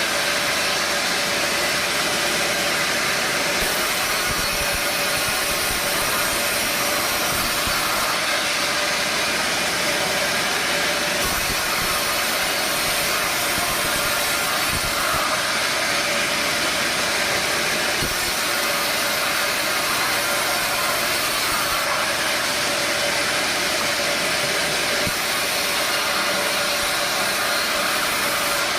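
Sawmill machinery running steadily: a constant, dense mechanical noise with a faint steady hum and no distinct cut or knock standing out.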